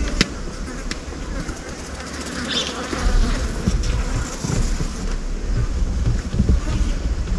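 Low rumble of a 4x4 on the move, heard from inside the cabin, building about three seconds in, with a few light clicks near the start.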